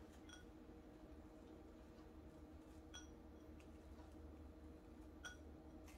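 Near silence: a faint steady room hum, with three faint, light clinks spread through it, fingertips tapping the small glass bowl of grated white chocolate.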